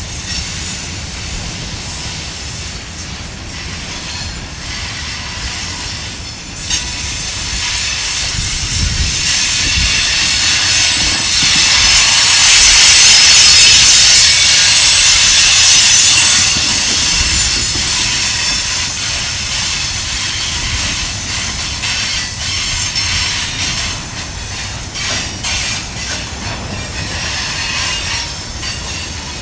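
Freight train's tank cars and covered hoppers rolling past on a curve, their steel wheels squealing in high-pitched tones against the rail, loudest about halfway through. A run of wheel clacks comes near the end.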